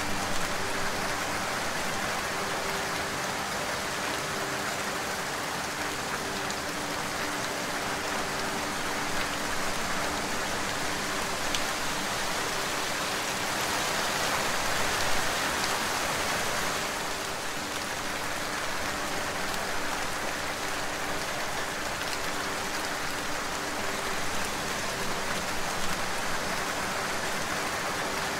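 Steady, dense rain falling, swelling a little about halfway through, with faint steady low tones underneath.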